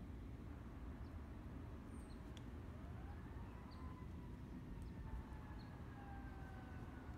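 Faint low rumble of outdoor ambience. About three seconds in, a siren's wail rises and then slowly falls in pitch, with small bird chirps here and there.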